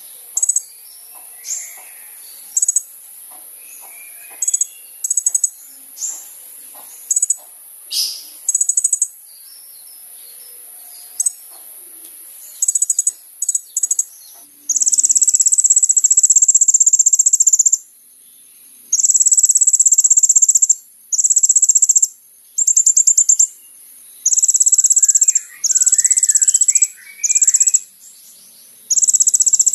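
Kolibri ninja sunbird singing in full voice: sharp high chirps at first, then from about halfway long, very rapid high trills of two to three seconds each, repeated with short gaps.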